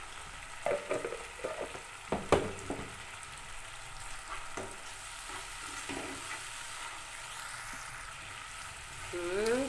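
Sauce of shallots, chilies and sweet soy sauce sizzling steadily in a small nonstick pan while a plastic slotted spatula stirs it, scraping and knocking against the pan. The sharpest knock comes a little over two seconds in.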